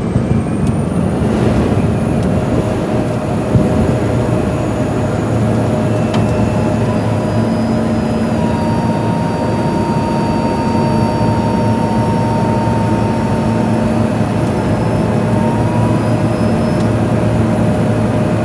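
Cockpit noise of a Pilatus PC-12's single PT6A turboprop engine and propeller running at high power: a steady, loud drone with a thin high whine that rises slightly in pitch shortly after the start.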